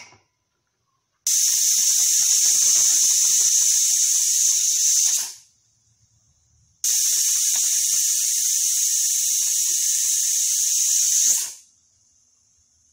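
Aluminium pressure cooker whistling twice: two loud, high hissing blasts of steam of about four to five seconds each, each starting suddenly and dying away quickly, with a faint steady hiss of steam between them. Each whistle is the weight lifting off the vent as pressure builds inside the cooker.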